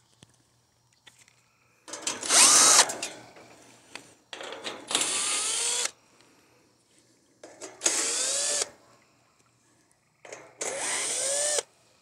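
Cordless drill-driver backing out the screws that hold an air-conditioner condenser's side panel, in four short runs of about a second each, the motor's whine rising in pitch as it spins up and falling away as it stops.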